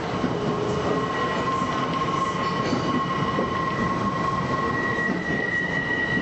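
Electric local train running along the track, heard from inside the front car, with a steady high squeal of several held tones over the running noise, the top one growing louder near the end.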